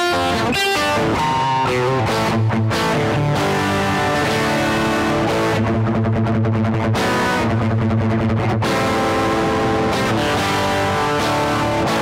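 Electric guitar, a Fender Stratocaster, played through a Marshall Jackhammer distortion pedal: a distorted rock riff of chords and single notes, some chords held for about a second.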